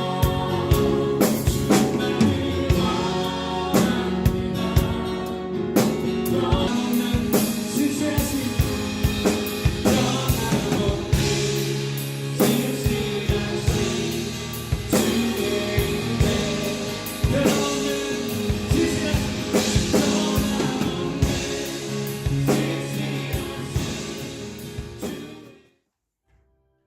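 Gospel worship song: a group of voices singing over a band with a drum kit. The music stops suddenly near the end.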